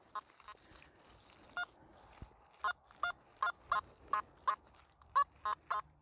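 Nokta Simplex metal detector with an SP24 search coil giving a run of short beeps, about two or three a second from a couple of seconds in, as the coil sweeps back and forth over a target. The detectorist believes the target is ancient metalworking slag.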